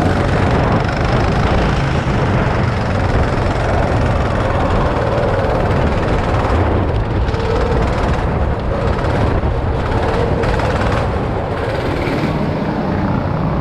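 Go-kart's small petrol engine running under way, heard onboard as a loud, steady, buzzing drone that eases slightly near the end as the kart slows.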